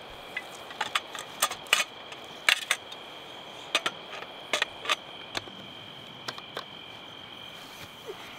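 Folding camp cot with a metal frame being unfolded: its legs and joints clack and click in a quick run of sharp knocks over the first five seconds or so, with a few more after. Crickets trill steadily behind.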